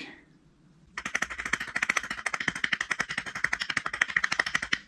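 Rapid, even mechanical clicking, about twenty clicks a second, starting suddenly about a second in and stopping abruptly near the end.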